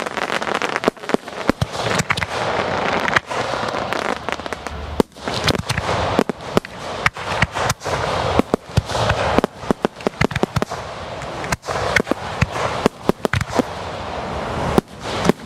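Fireworks display fired at close range: a continuous rushing hiss with many sharp bangs and cracks going off in rapid, irregular succession.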